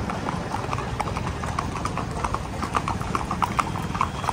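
Hooves of a group of Marwari horses clip-clopping on a road: many irregular, overlapping hoof strikes that come thicker from about a second and a half in, over a steady low rumble.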